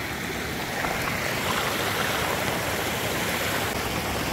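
Small river rushing over rocks at a little cascade: a steady noise of running water that gets a little louder about a second in.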